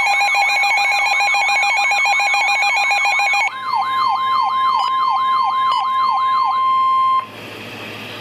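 Weather radio emergency alert alarm: a loud fast-warbling siren tone over a steady tone, switching about three and a half seconds in to a long steady warning tone with a slower falling sweep repeating about three times a second. Both stop about seven seconds in, leaving radio static.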